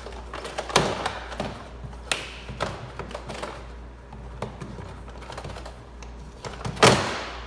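Plastic inner door trim panel of a 2016 Honda Civic being pulled up and off the door: scattered plastic clicks and knocks, with one loud knock near the end.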